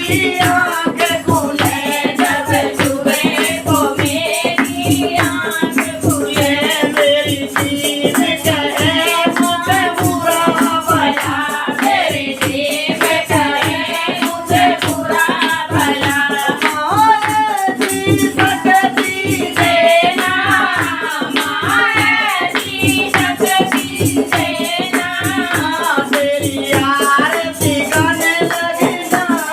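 Devotional bhajan music: a wavering melody over a steady, quick beat of hand percussion with shaken jingles.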